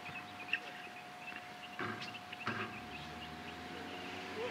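A basketball bouncing on an outdoor court: a couple of sharp knocks near the start and a few duller thuds later, with birds chirping and a faint steady whine throughout.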